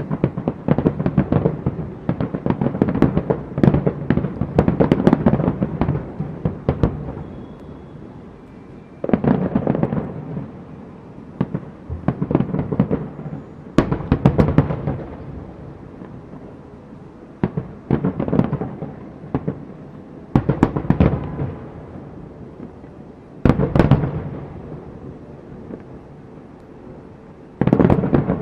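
Aerial fireworks bursting: rapid clusters of sharp cracks and booms, each volley lasting a second or two, with short quieter gaps between volleys.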